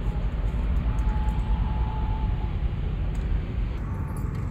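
Steady low rumble of vehicle noise, with a faint thin whine that comes and goes.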